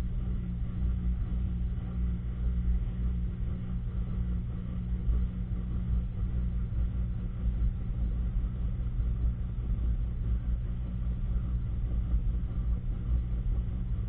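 Top-load washing machine running, heard from inside its drum: a steady low mechanical hum with no change through the stretch.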